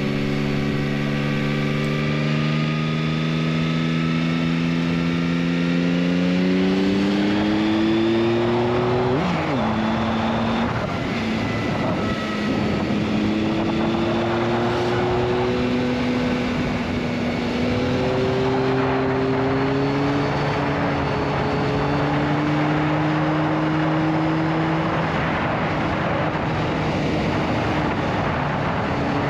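Yamaha XSR900's three-cylinder CP3 engine under way, heard onboard. Its note climbs slowly for about nine seconds, then drops at a gear change. Several shorter rising pulls and shifts follow, and it runs evenly near the end, with wind rush throughout.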